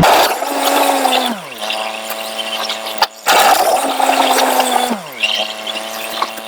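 John Deere 870 compact tractor working the front-end loader: its engine's pitch rises, holds, then drops, twice over, with a brief break between. Scraping hiss from the bucket back-dragging gravel runs underneath.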